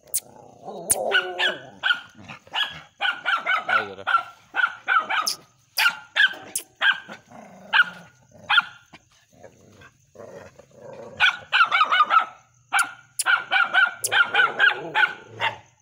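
Dog barking in quick runs of short, sharp barks, with a lull around the middle before a second burst of barking.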